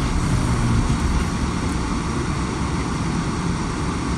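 Car driving on a snow-covered road, heard from inside the cabin: a steady mix of engine and tyre noise under light acceleration.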